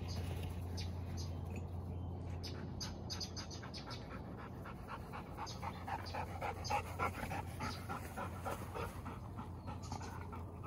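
Dog panting in quick, rhythmic breaths, louder in the second half as it comes close.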